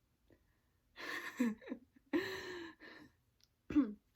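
A woman's breathy wordless vocal sounds, gasps and sighs: a breathy one about a second in, a longer held one after two seconds, and a short falling one near the end.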